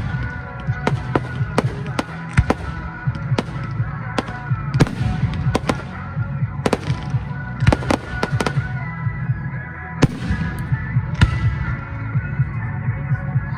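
Fireworks display: a rapid, irregular run of bangs and crackles, several shells bursting each second, over music playing along with the show.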